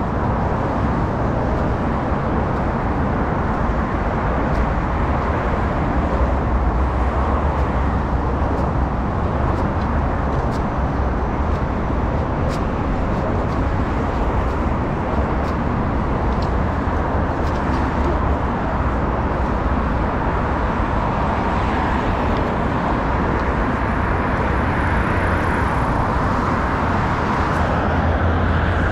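Steady, dense road traffic: many cars passing continuously on a wide multi-lane avenue, with a constant low rumble.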